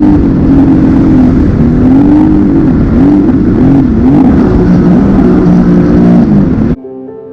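Jet ski engine running hard, its pitch rising and falling again and again as the throttle changes, over a heavy rush of noise. It cuts off suddenly near the end.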